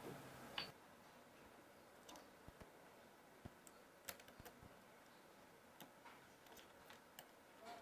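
Near silence broken by a few faint, scattered light clicks: metal tweezers tapping and prying at a flex-cable connector on a smartphone's main circuit board.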